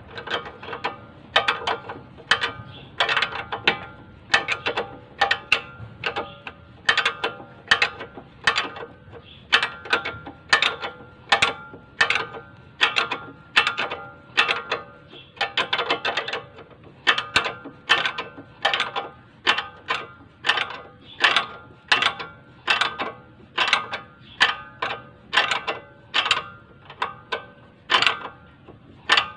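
Ratcheting wrench clicking in steady back-and-forth strokes, about two a second, with a light metallic ring, as a bolt on a car's front strut assembly is turned.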